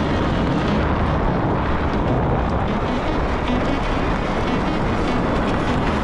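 Steady rushing noise of wind buffeting the microphone while riding a Onewheel.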